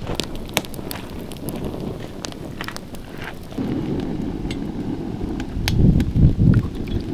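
Wood fire crackling, with scattered sharp pops over a steady low noise that gets louder about four seconds in and swells again near the end.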